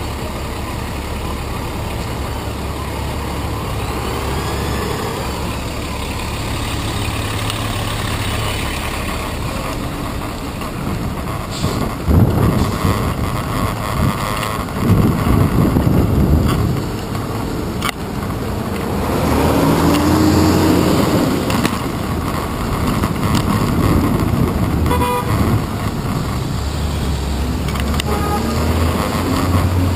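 Busy city street traffic heard from a bicycle in the road: engines of a bus, taxis and cars running close by, with car horns honking.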